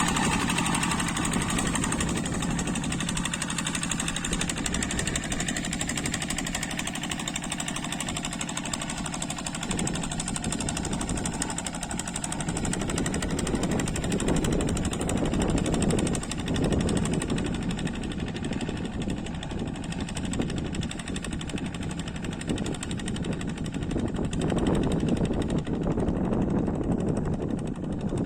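Kubota diesel engine of a two-wheel paddy-field hand tractor running steadily. About ten seconds in it turns rougher and noisier.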